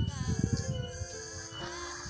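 Background music: a melody of held and gliding notes over a low rhythmic pulse.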